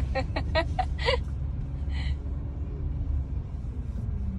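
Steady low rumble of a car's engine and road noise heard inside the cabin. A voice speaks briefly at the start.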